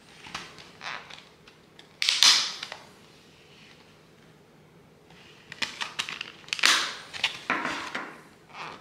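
Clear plastic disc trays of a multi-disc Blu-ray digipak being handled, giving sharp plastic clicks and clacks. The loudest comes about two seconds in, and a quick cluster follows in the second half.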